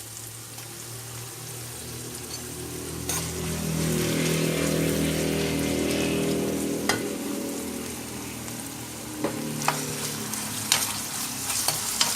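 Onion and ginger-garlic masala sizzling in hot oil in a kadai while it is stirred, with the spoon clicking against the pan several times from about three seconds in. A low steady hum swells in the middle and fades.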